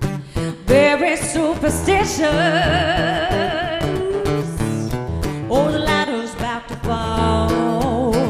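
A woman singing over a strummed acoustic guitar, holding long notes with a wide vibrato.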